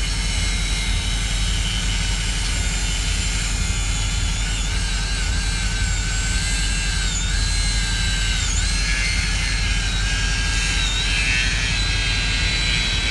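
Machinery running steadily: a low engine drone with a high whine over it that sags in pitch briefly a few times.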